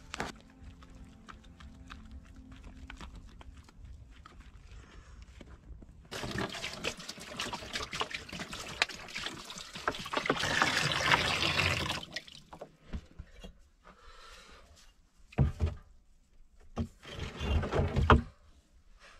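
Water poured from a plastic bottle into a plastic tub, splashing for several seconds, loudest near the end of the pour. Then bricks are lowered into the water, with a few knocks and splashes near the end.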